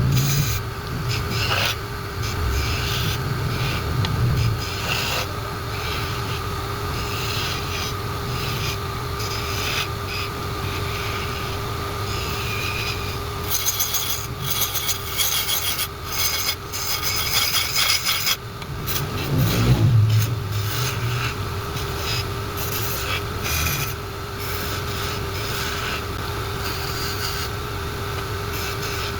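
Wood lathe running with a steady hum while a tool scrapes against the spinning wooden workpiece, a rough rasping noise that comes and goes and is most intense for a few seconds around the middle.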